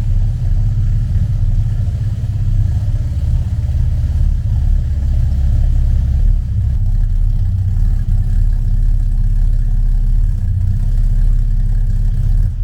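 A car engine running steadily with a deep low rumble.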